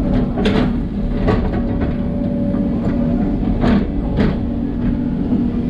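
Hidromek 140LC hydraulic excavator running steadily as it works, with several sharp knocks from the bucket and soil while a load is dumped.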